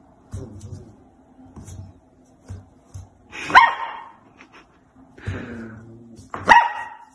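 Golden retriever puppy giving two short, sharp barks about three seconds apart, with softer noises between them.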